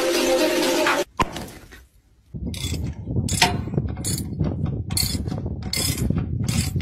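Music cuts off about a second in. After a brief near-silence, a large 32 mm open-end wrench working a big hex bolt on a steel plate makes repeated metallic strokes, about two a second, over a low rumble.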